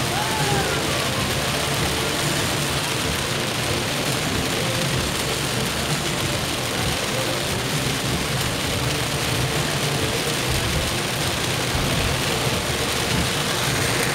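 Heavy rain on a moving car, mixed with the car's engine and tyre noise on the wet road, heard from inside the cabin.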